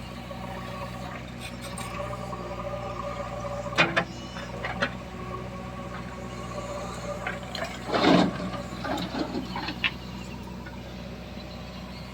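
A heavy machine's diesel engine runs steadily, with a few knocks or clanks, the loudest about eight seconds in.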